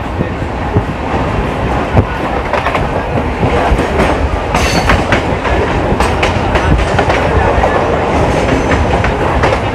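Mumbai suburban electric local train running at speed, heard from on board: a steady loud rumble and rushing noise with scattered clicks of the wheels over the rail joints.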